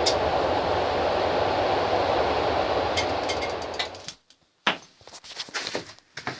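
A loud, steady rushing noise from a running workshop tool or burner stops about four seconds in, followed by a few scattered clicks and light knocks.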